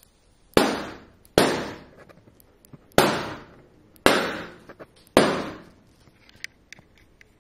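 Five black rubber balloons bursting one after another as a blue laser beam burns through them: five sharp pops roughly a second apart, each with a short echoing decay.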